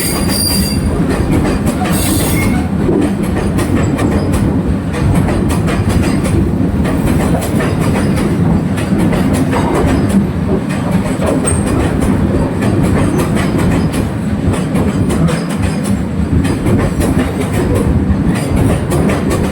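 Train hauled by a WAG-9 electric goods locomotive running steadily along the track: a continuous loud rumble of wheels on rails with rapid clickety-clack, and a short high-pitched squeal near the start and again about two seconds in.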